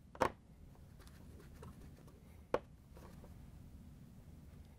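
Light clicks and taps of a quarter-inch nut driver and gloved hands working a screw in a refrigerator's plastic dispenser housing: two sharper clicks, one just after the start and one about halfway, with faint ticks between.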